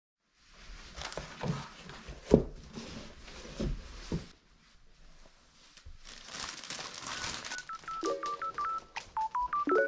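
Rustling and handling noise with a few knocks, the sharpest about two seconds in. Near the end a melody of short, quick, plucked-sounding high notes starts up.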